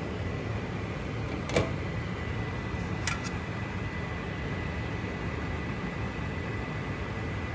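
Steady background hum with a faint high whine, broken by two short knocks or clinks about a second and a half apart, the second one doubled.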